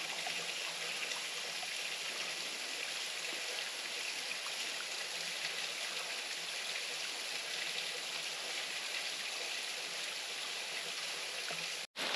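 Small waterfall splashing steadily, a constant rush of water strongest in its hiss, cutting out briefly near the end.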